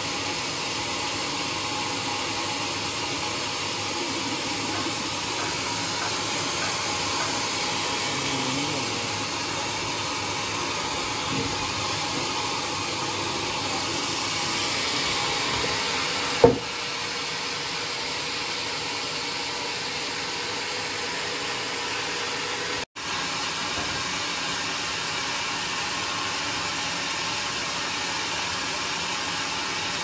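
Large vertical band sawmill running with a steady, even hiss from its spinning blade and wheels. A single sharp knock comes about sixteen seconds in, as the heavy timber beam is set against the carriage.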